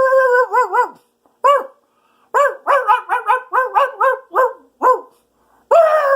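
High-pitched, dog-like barking and yipping in quick runs of short rising-and-falling yips, about four or five a second, broken by brief pauses about a second in and near the five-second mark. A longer, wavering call follows near the end.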